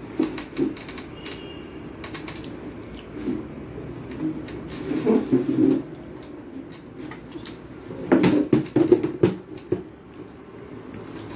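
Eating sounds from a person eating rice and fish curry by hand off a steel plate: wet chewing and fingers mixing rice in the curry. Short bursts of clicks and smacks come about half a second in, around five seconds in, and loudest about eight to nine seconds in.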